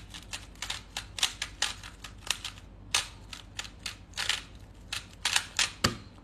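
Rubik's cube being turned by hand: a quick, irregular run of plastic clicks and clacks as the layers snap round, several a second.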